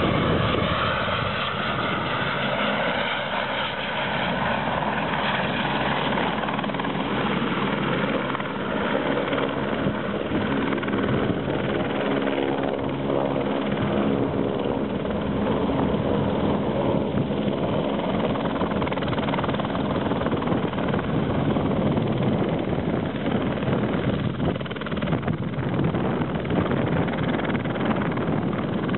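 Firefighting helicopter running steadily as it hovers low over a lake, dipping its slung water bucket to refill. The rotor and engine noise holds an even, continuous pitch.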